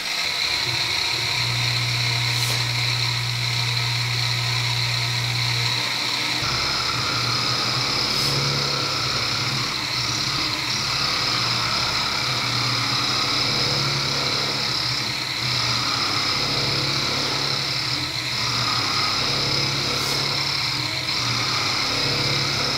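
Small end mill in a CNC milling machine cutting F114 steel: a steady high whine over a low machine hum. About six seconds in, a higher cutting tone joins and drops out briefly every few seconds.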